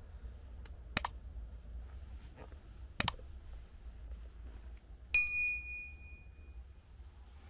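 Subscribe-button animation sound effect: two sharp mouse clicks about two seconds apart, then a bright bell ding that rings out for about a second and a half.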